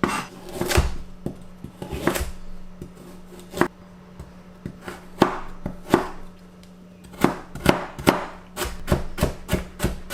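Kitchen knife chopping chilies and carrot on a cutting board: irregular sharp strikes, quickening into a fast run of cuts near the end.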